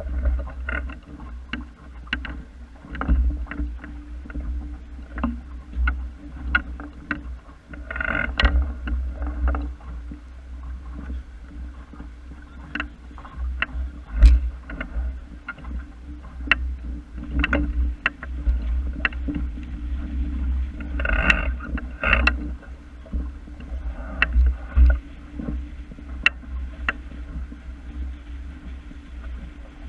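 Water splashing and slapping against a small wooden sailing dinghy's hull as it moves under sail, with irregular sharp knocks and ticks. A steady low rumble of wind on the microphone runs underneath.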